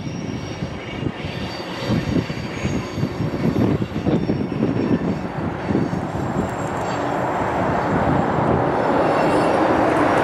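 Freight train of tank cars rolling around a curve: a steady rumble of steel wheels on rail, with faint high wheel squeal in the first half. A rushing noise grows over the last few seconds.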